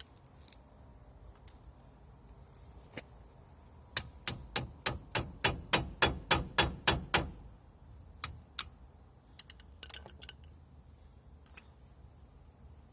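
Hammer striking metal in a quick run of about fourteen blows, some four a second and growing louder, followed by a few lighter taps.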